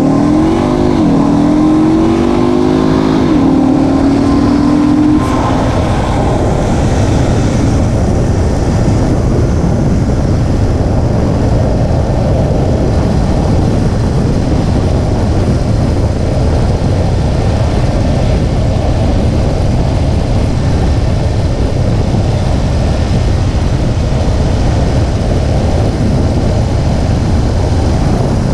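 2017 Infiniti Q50's VR30 twin-turbo V6 pulling the car under acceleration. The engine note climbs, drops back as it shifts up, and climbs again before levelling off about five seconds in. After that comes a steady rumble of engine and road noise at cruising speed.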